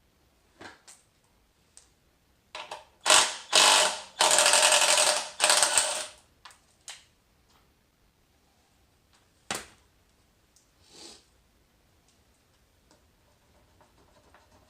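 Power impact tool hammering out bolts on a motorcycle's seized front brake, in several loud rattling bursts over about three seconds, with a few tool and metal clicks before and after.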